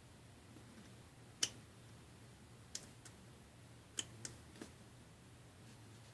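Small sharp clicks and ticks of a repair tool against the small parts of an opened iPhone 5 as a bent piece is worked back into shape: about five clicks, the loudest about a second and a half in and a quick cluster near four seconds, over a faint low hum.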